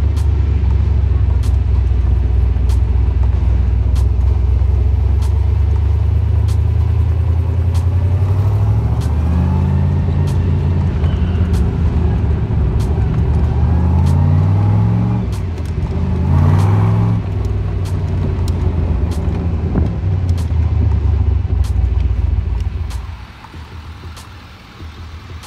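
Car engine running with a deep, steady low rumble, heard from the open cabin of a convertible with the top down, with faint regular ticks about every two-thirds of a second. The rumble drops away sharply about 23 seconds in.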